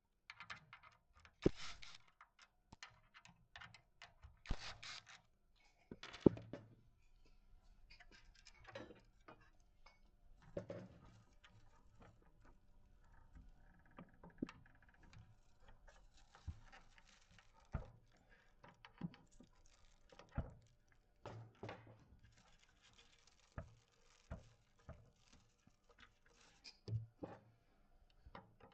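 Faint, scattered clicks, knocks and scrapes of hand tools and metal parts being handled while screws are removed from the end of a cleaning-robot brush roller, with a few slightly louder knocks in the first seven seconds.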